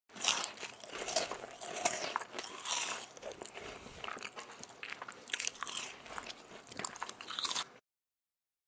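Eating sounds: crunchy biting and chewing as people eat a meal, a run of irregular crisp crunches and clicks that stops about a second before the end.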